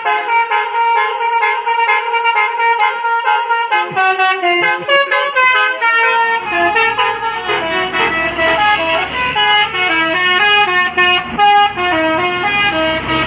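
A bus's telolet basuri horn, a set of electric trumpets playing a fast, stepping melody of short notes without pause. About six seconds in, a low engine rumble joins under the melody.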